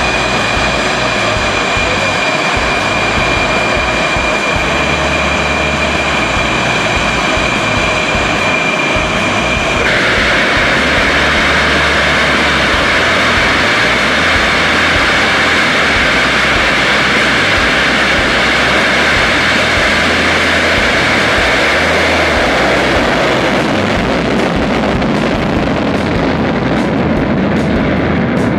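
HAL Tejas fighter's single GE F404 turbofan on a full-afterburner takeoff: a steady high jet whine, which about ten seconds in gives way abruptly to a louder, even rushing afterburner noise as the jet rolls past. Near the end the sound grows duller as it moves away down the runway.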